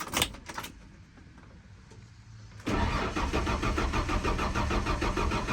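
A few clicks, then about 2.7 seconds in the starter of a 1994 Ford F-150 cuts in and cranks the engine over in an even pulsing rhythm without it catching. It is a no-start that the owner puts down to no spark, most likely a bad ignition coil.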